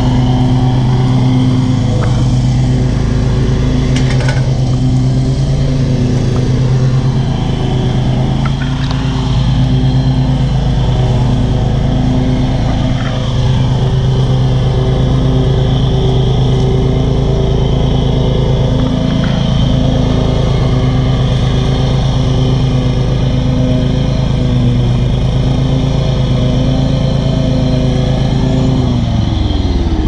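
Toro zero-turn riding mower's engine running steadily at mowing speed while cutting grass, then slowing down just before the end as the mower is brought to a stop.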